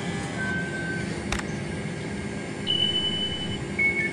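Elizabeth line Class 345 electric train standing at the platform with a steady hum, a single click about a second in and two short electronic beeps. Near the end a repeating two-tone beeping starts, typical of the door warning before the doors close.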